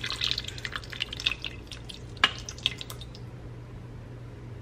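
Tamarind juice poured from a cup into a pot of cooking vegetables, the thin stream thinning out into scattered drips over the first three seconds, with one sharp tap a little after two seconds in.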